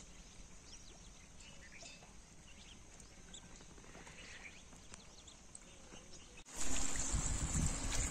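Faint, scattered short bird calls over a quiet background. About six and a half seconds in it cuts suddenly to a much louder rushing of wind on the microphone and running water.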